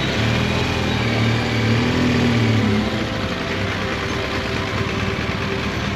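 Motorcycle engine running at low revs as the bike moves off slowly, a little louder over the first three seconds and then settling to a steady hum.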